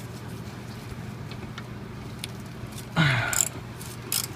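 Two 13 mm wrenches working the nut off a sway bar link end: faint metal clicks over a steady low hum. About three seconds in comes a short, louder sound that falls in pitch.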